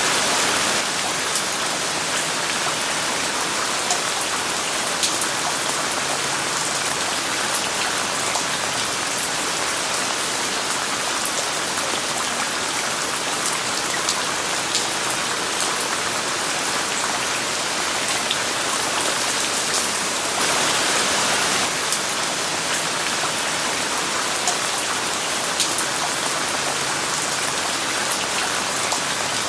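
Steady rain falling, an even hiss with scattered sharp drop taps; a slightly heavier stretch about two-thirds of the way through.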